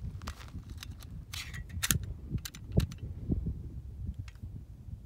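Irregular metallic clicks and clacks of a semi-automatic pistol being picked up off a table and handled, a dozen or so sharp ticks and knocks, with a low wind rumble on the microphone.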